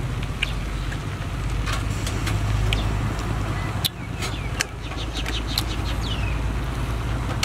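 Scattered sharp clicks and smacks from eating grilled snails, picking the meat from the shells, over a steady low rumble.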